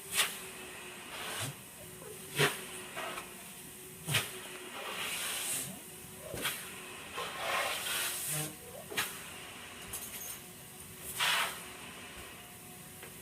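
Horse grooming vacuum running with a steady hiss and a low hum, with short, sharp rushes of air every second or two as it is worked over the horse's coat.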